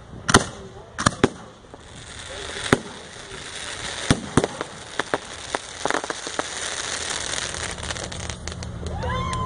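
Aerial display fireworks going off: a dozen or so sharp bangs of bursting shells, irregularly spaced, over a hissing crackle of crackling stars that builds from about two seconds in.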